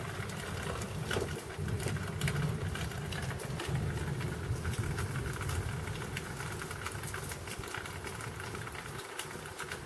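Thunder rolling, a low rumble that dies away about nine seconds in, with rain pattering and small ticks over it.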